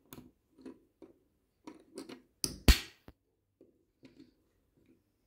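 Small plastic clicks and taps as Lego-style minifigures and bricks are handled on a tabletop, with one louder knock about two and a half seconds in.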